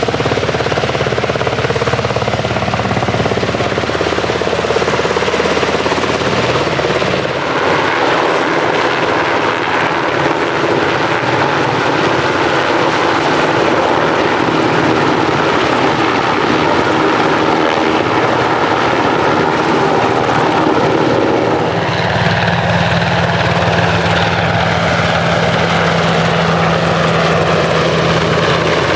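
US Coast Guard helicopter (MH-65 Dolphin / MH-60T Jayhawk) turbine engines and rotor running loud and steady during a flying display. The sound shifts about seven seconds in, and a steady low hum joins about 22 seconds in.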